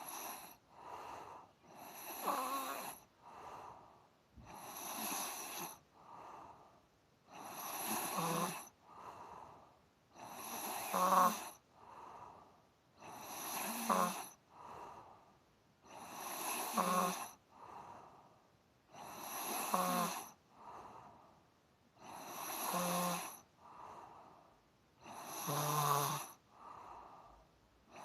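Snoring in a slow, steady rhythm: a loud snore about every three seconds, about nine in all, with a quieter breath between each.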